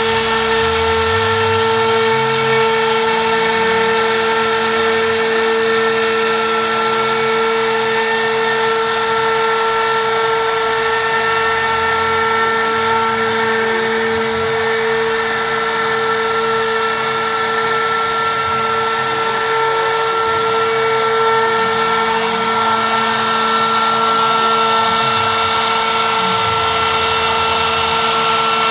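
CNC router spindle running at a steady high speed with a constant whine, its bit cutting through HPL-laminated plywood.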